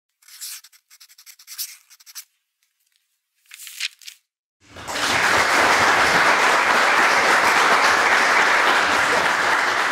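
Audience applause: a brief scattering of scratchy crackles at first, then a full, steady wave of clapping from about five seconds in that begins to die down near the end.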